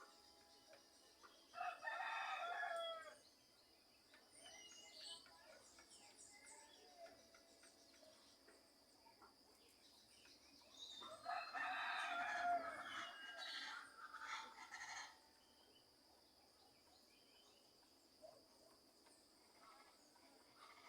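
Rooster crowing twice, the second call about nine seconds after the first, with small birds chirping faintly in between.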